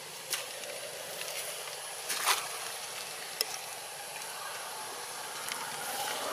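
Steady outdoor background hiss, broken by a few short sharp clicks, the loudest a brief burst about two seconds in.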